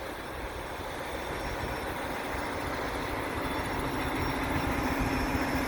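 Heavy truck engine running with road noise, gradually getting louder, with a low steady engine hum coming in about halfway through.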